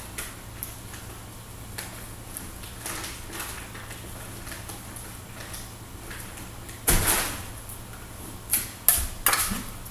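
Kitchen cabinet and counter handling: scattered faint clicks over a low steady hum, then one loud clatter about seven seconds in and a few sharper knocks near the end, like a cupboard or drawer being opened and things being picked up.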